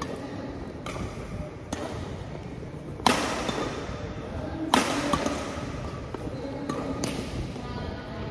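Badminton racket strikes on a shuttlecock during a rally: a series of sharp hits, each ringing on in a large hall. The two loudest come about three and almost five seconds in.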